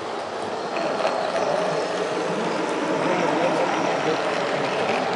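HO-scale model diesel locomotive and its cars running past on the track: a steady rolling noise that grows a little louder as the train nears, with faint voices in the background.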